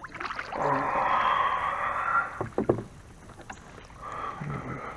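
Canoe paddle stroking through the water: a long swish, then a couple of short knocks, then a fainter swish near the end.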